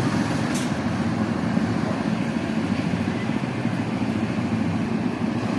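Small go-kart engines running steadily at low speed, a constant low rumble with no revving.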